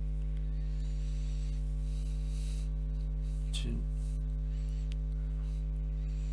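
Steady electrical mains hum, a constant low buzz with evenly spaced overtones.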